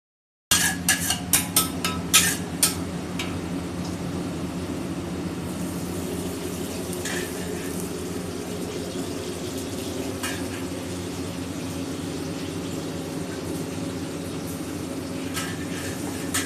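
A metal spatula strikes a wok in a quick run of clanks while noodles are stir-fried. Then comes a steady frying hiss over a low hum, with a few scattered clinks.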